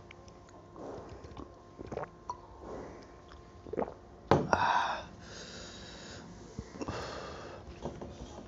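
Mouth and breath sounds of a man eating with his hand: soft chewing, sniffs and wheezy breaths. About four seconds in, a sharp knock as a drinking glass is set down on the wooden table, followed at once by a loud breathy exhale, the loudest sound here, and more heavy breaths after it.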